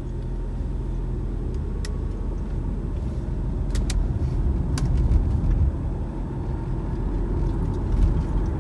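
Car driving, heard from inside the cabin: a steady low road and engine rumble, with a few faint clicks.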